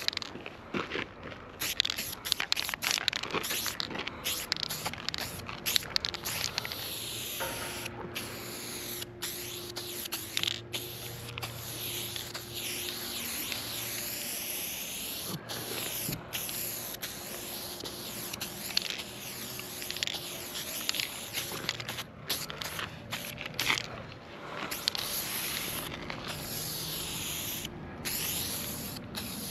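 Aerosol spray paint can fitted with a wide-stroke BIG Shotty ULTRA cap, hissing as it sprays paint onto a wall. It goes in bursts, stopping and starting many times, with a few longer steady sprays in the middle.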